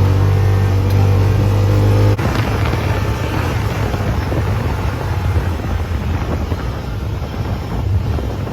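Off-road vehicle engine running on the sand dunes, a steady drone that about two seconds in turns abruptly into a rougher, noisier pull under load, with wind buffeting the microphone.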